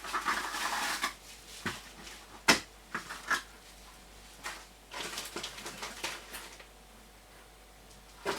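Cardboard wand box being opened by hand: paper and cardboard rustling, with several sharp knocks, the loudest about two and a half seconds in, and more rustling a little past halfway.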